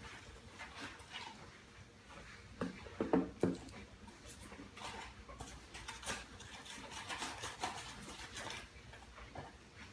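Handling noise from unpacking drone accessories: cardboard and plastic packaging rustling, with scattered clicks and a quick cluster of three or four knocks about three seconds in.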